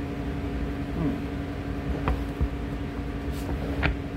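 Steady hum of running machinery with a few fixed tones, and a couple of short light taps as cards are laid on the tabletop, about two seconds in and near the end.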